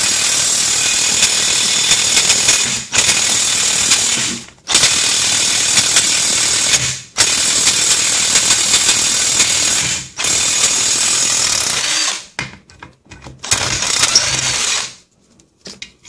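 Harbor Freight Chicago Electric 18V cordless impact wrench hammering on a factory-torqued wheel hub assembly bolt, the trigger pulsed in about five bursts of two to three seconds with short pauses between, then several shorter bursts until the bolt comes loose.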